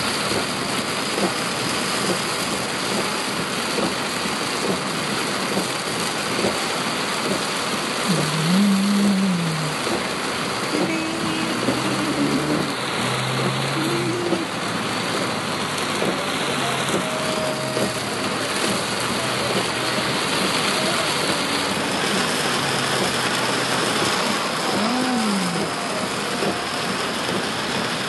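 Steady hiss of road and wind noise inside the cabin of a moving Toyota Innova.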